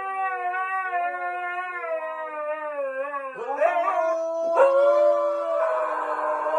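Two huskies howling together, long wavering howls that overlap at different pitches. About three and a half seconds in the howls break and slide sharply in pitch, then settle back into steady howling.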